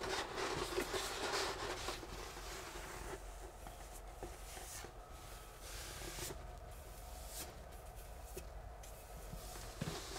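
Wallpaper brush swept over a freshly pasted paper backscene to push out an air bubble: soft brushing and rustling of paper, busier in the first few seconds and fainter after.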